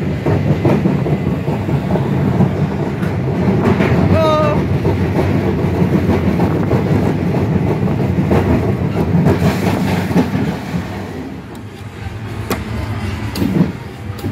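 Schwarzkopf Jet Star roller coaster car running along its steel track, a dense rattling rumble from the wheels and chassis. The rumble eases about three-quarters of the way in as the car comes onto the final straight toward the station, with a few knocks near the end.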